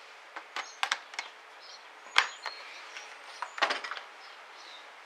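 Light clicks and knocks from a plastic jug of deionized water being handled at a wooden workbench. There are a few sharp ticks in the first second or so, a louder knock about two seconds in, and a quick cluster of clicks a little before four seconds.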